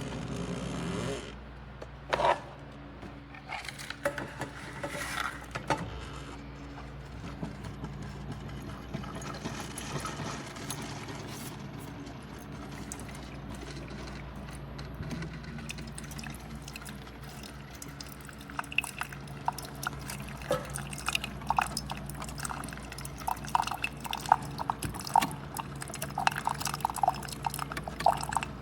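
Keurig K-Supreme single-serve coffee maker brewing: a steady low pump hum, with a sharp click about two seconds in. Coffee streams and drips into the cup, the splashing getting busier over the last ten seconds.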